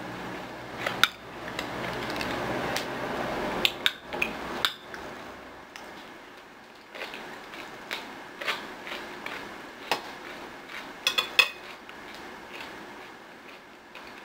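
Metal spoon clinking and scraping against a glass bowl in a run of sharp clinks, loudest about a second in and in a quick cluster near the end. Softer mouth sounds of chewing come in between.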